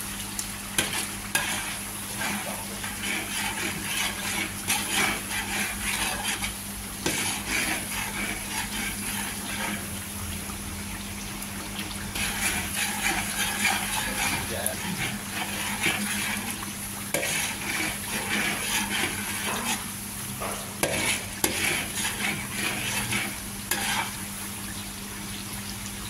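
Metal ladle stirring and scraping through chili-shallot sambal paste frying in oil in a wok, with a light sizzle. The stirring comes in bouts of a few seconds with short pauses between them.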